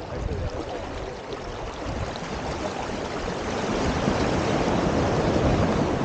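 Ocean waves washing in at the shore: a steady rushing of water that swells louder in the second half.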